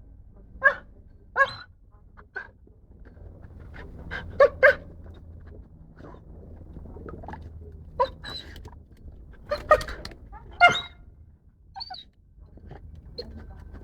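A dog making a series of short yips and gurgling, bubbling noises as it snaps at leaves with its muzzle in a water tank.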